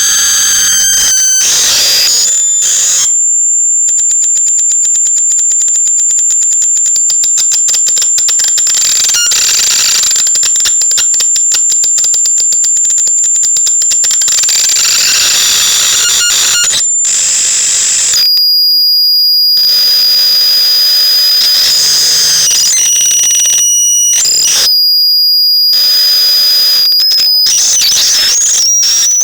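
Psychotron Mini electronic noise generator putting out harsh, piercing high-pitched tones like an alarm. It holds a shrill whistle over a fast buzzing pulse, then cuts abruptly to a different steady tone and back several times, with warbling pitch glides near the end.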